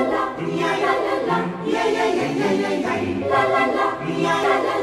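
Background music: a choir singing sustained chords that change about every second and a half.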